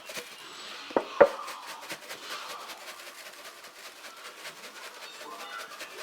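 Kitchen handling noises: two sharp knocks in quick succession about a second in, like utensils or cookware being set down, then faint clicking and rubbing.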